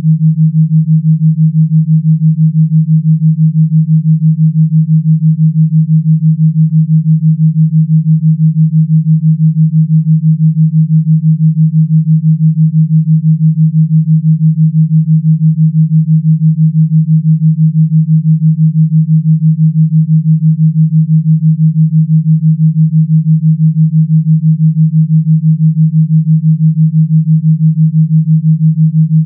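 A single steady, low electronic pure tone, pulsing rapidly and evenly in loudness. It is a tones-only gamma-wave entrainment track with no music.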